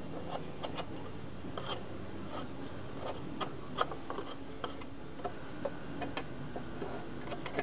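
Caked dead grass being scraped off the underside of a tipped-up lawn mower's cutting deck: irregular short scratches and clicks, several a second, unevenly spaced.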